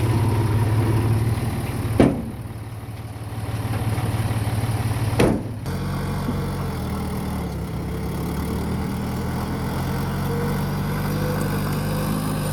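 Heavy earthmoving machine's diesel engine running under load, swelling and easing off. Two sharp bangs come about 2 and 5 seconds in, and the engine note changes just after the second one.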